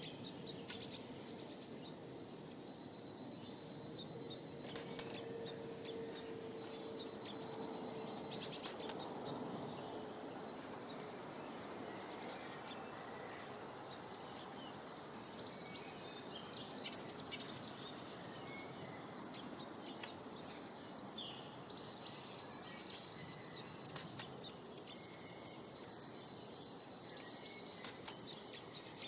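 Many small birds chirping and calling together, a dense mix of short high-pitched notes over a steady background hiss. A faint low hum sits underneath from about four to ten seconds in.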